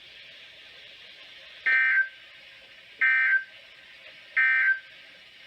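Three short bursts of EAS SAME data tones from a NOAA Weather Radio broadcast, about 1.4 seconds apart. This is the warbling digital end-of-message code that closes a warning. Faint radio hiss fills the gaps between the bursts.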